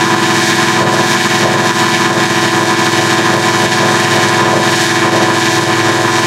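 Animation-logo audio run through heavy digital effects, a harmonic adder among them: a loud, steady, buzzing drone of many stacked sustained tones that holds unchanged throughout.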